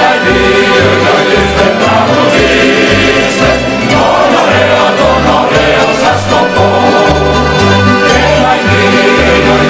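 Corfiot kantada: several voices singing a serenade in harmony over a plucked string accompaniment, with a steady, regularly changing bass line.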